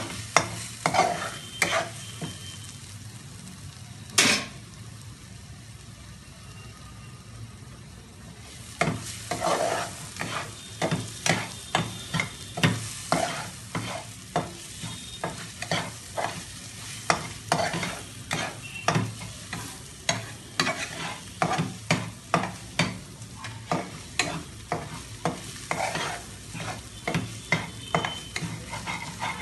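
Metal spatula stirring and scraping cluster-bean fry around a metal pan, with a low sizzle of the frying underneath. A few strokes at the start and one sharp knock about four seconds in, then from about nine seconds a steady run of scrapes, roughly two a second.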